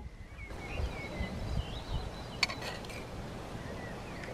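Songbirds chirping in the background, with short rising and falling notes, plus one brief crackle about two and a half seconds in.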